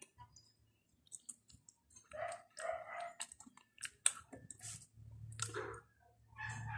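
A person chewing soft bread close to the microphone: scattered wet mouth clicks and smacks, fairly quiet, with another bite taken near the end.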